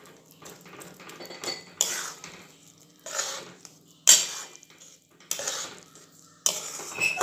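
A metal spoon scraping and stirring a thick moong dal halwa mixture around a kadhai, in about five separate strokes a little over a second apart, the sharpest about four seconds in. The mixture is stirred without pause so it does not form lumps or burn.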